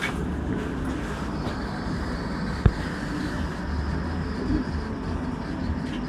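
Steady low rumble of street background noise, with a single sharp click about two and a half seconds in.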